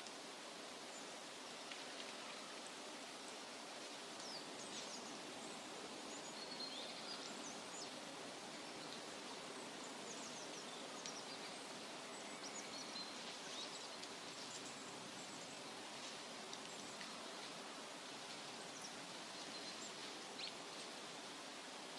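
Steady, soft rushing noise of a forest nature-ambience recording, with faint high chirps of small birds scattered through it.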